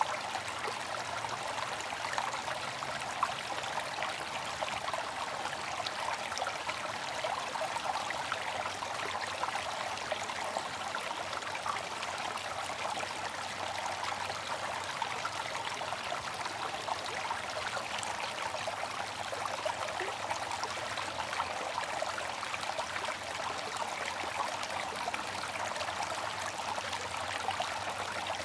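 Bamboo water fountain running: a steady trickle and splash of water falling from the spout into its basin.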